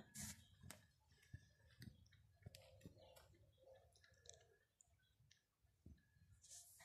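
Near silence with faint, scattered clicks and taps.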